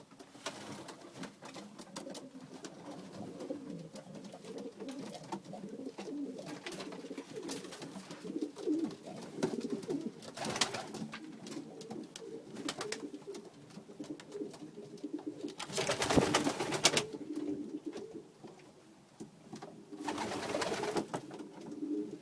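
Domestic pigeons cooing continuously in a small enclosed space such as a loft. Short noisy bursts break in three times, the loudest about two-thirds of the way through.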